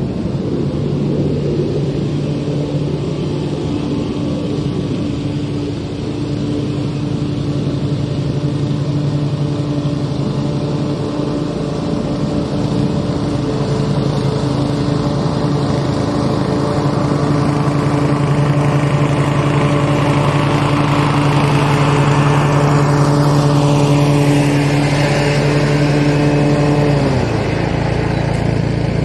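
Toro TimeMaster wide-deck walk-behind lawn mower running steadily while cutting grass, its engine note dropping slightly about 27 seconds in.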